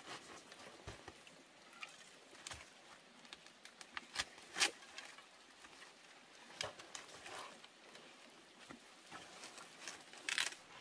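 Irregular light snaps and crackles, with one sharper snap about four and a half seconds in and a quick cluster of clicks near the end.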